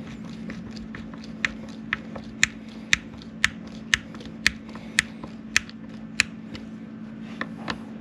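Hand screwdriver driving a wood screw into the barn door latch's eye plate, a sharp click about twice a second as it is turned, with a few more clicks near the end. A steady low hum sits underneath.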